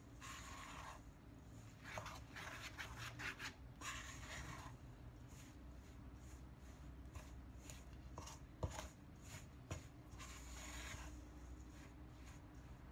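Faint rubbing and scraping of a hand and spoon working flour, egg and milk into a shaggy bread dough in a stainless steel bowl, with a few light clicks.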